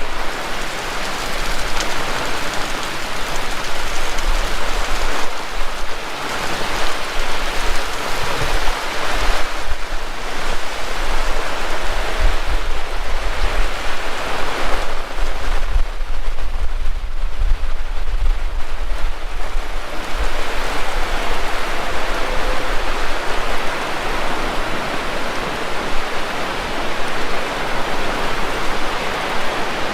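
Heavy rain falling steadily, with a low rumble of wind gusting on the microphone now and then.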